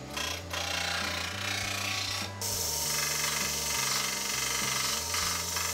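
Bench disc sander, then a small belt sander, running with a steady motor hum under the hiss of a stainless-steel sheet-metal blank being ground against 120-grit abrasive. The sound changes abruptly about two and a half seconds in.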